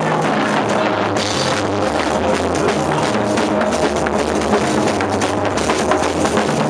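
Loud band music with a drum kit beating steadily and bass underneath.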